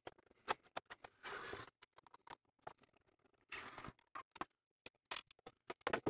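Hand screwdriver loosening screws in the plastic case of an APC Back-UPS: scattered clicks of tool and plastic, with two short scraping sounds about a second and a half and three and a half seconds in. Near the end comes a quick run of plastic clicks and knocks as the screwdriver is set down and the case is handled.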